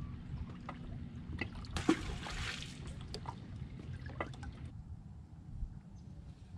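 A splash in the water about two seconds in, lasting under a second, with small drips and ticks of water around it.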